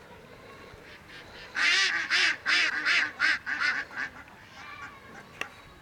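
Domestic waterfowl calling: a run of about seven loud calls over two and a half seconds, about three a second, starting about a second and a half in. A single sharp click near the end.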